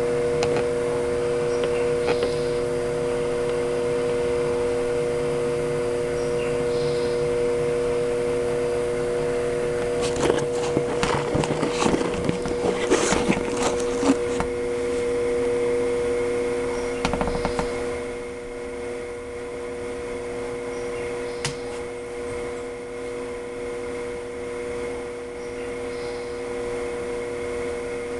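Egg incubator's fan running with a steady, multi-toned hum, interrupted about ten seconds in by a few seconds of clicks and knocks and another brief rattle a little later. After that the hum continues slightly quieter.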